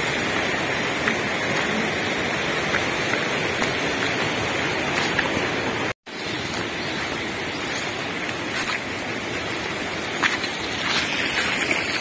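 Steady outdoor rushing noise with a few soft clicks and rustles. It cuts out for a moment about halfway through, then carries on.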